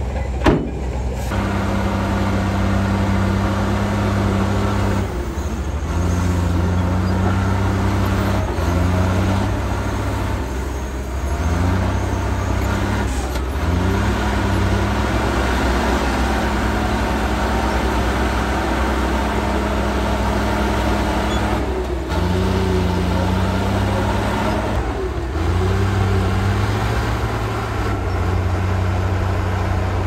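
Heavy diesel engine of an old Komatsu crawler bulldozer running under load while pushing dirt, its note dipping and climbing back every few seconds as the revs change. A single sharp click comes just after the start.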